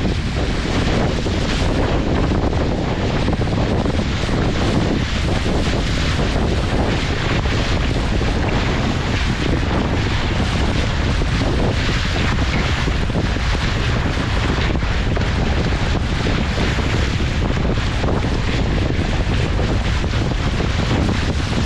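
Steady, heavy wind noise buffeting the microphone, with rushing water underneath.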